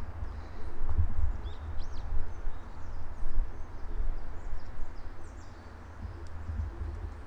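Small birds chirping faintly, with a couple of quick rising calls about two seconds in and a few more scattered chirps after, over a louder, uneven low rumble.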